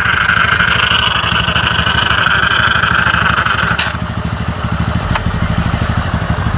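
TVS Ntorq 125 scooter's single-cylinder engine idling, with a high, steady buzzing rattle from the loose kick-start assembly. About four seconds in the rattle stops with a click and the idle goes on alone.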